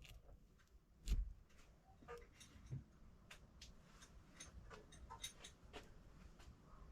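Faint, irregular clicks and light knocks from hand work on an engine, with one louder knock about a second in.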